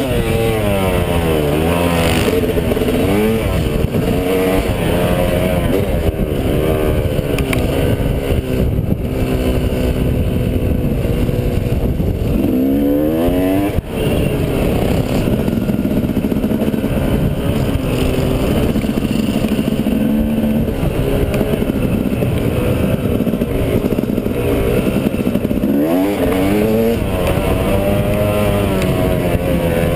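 Dirt bike engine running under load on a trail ride, its pitch repeatedly climbing as it accelerates and falling back as the throttle is rolled off, with sharp climbs about 13 seconds in and again near the end.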